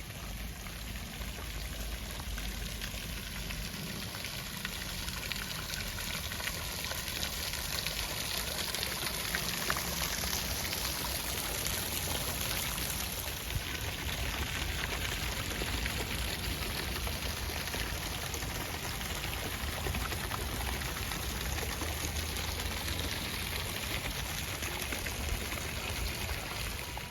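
Steady rush of running, splashing water, holding at an even level throughout.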